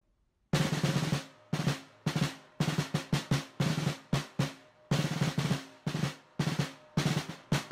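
Intro music made of a drum pattern: sharp, snare-like hits in quick rhythmic groups, starting about half a second in.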